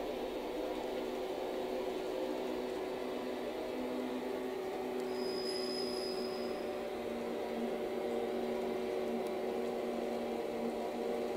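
HO gauge model train running on the track: a steady whir of the locomotive's motor and the wheels rolling on the rails, with a brief thin high tone about five seconds in.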